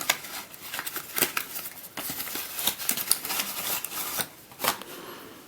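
A cardboard puzzle box and its packaging being handled: a run of irregular sharp clicks, taps and rustling, with a louder cluster of clicks shortly before the end.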